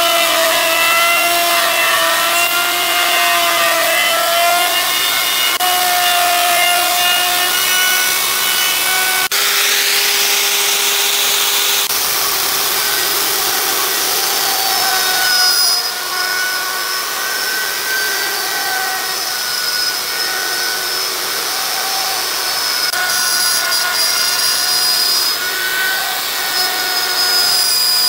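A power tool working wood, its motor whine wavering in pitch as it is pushed through the cut. The sound changes abruptly for a few seconds about nine seconds in, then carries on.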